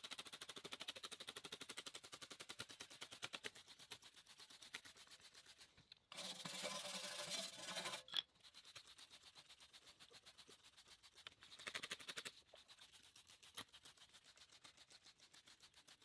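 Faint scrubbing of a small hand wire brush on wet, rusty steel tubing, in two short spells about six and eleven seconds in, loosening rust softened by a phosphoric-acid rust dissolver. Faint even ticking sounds between the spells.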